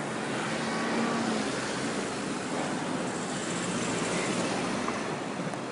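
A building rattling steadily as it shakes in an earthquake, a continuous dense noise.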